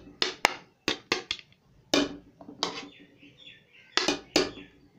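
Metal serving spoon clinking and scraping against a cooking pot and a plate while cooked rice is scooped out: a string of sharp knocks at irregular intervals, with quiet gaps between them.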